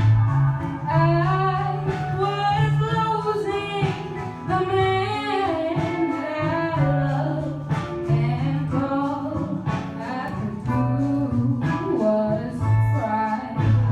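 A woman singing a blues-soul song over instrumental backing of bass and guitar with light percussion. She holds notes with a wide vibrato in the first half.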